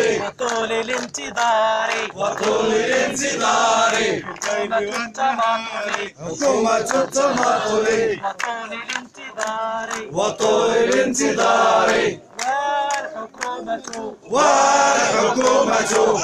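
Crowd of protesters chanting slogans in call and response, led by a man shouting through a megaphone, with hand clapping through the chant.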